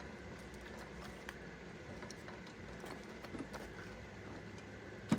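Quiet background with faint scattered clicks and light taps, and one sharper click at the very end.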